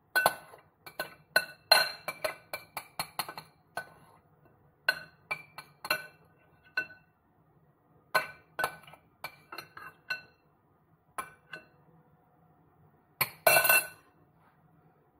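Repeated clinks of a utensil striking a glass bowl while vegetable filling is scooped out: a quick run of clinks at first, scattered single ones after that, and a louder cluster near the end.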